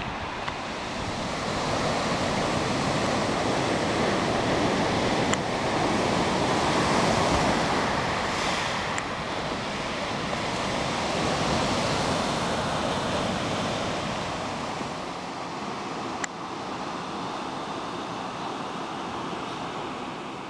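Sea surf breaking and washing up the beach, a steady rush that swells over the first few seconds and eases off in the second half.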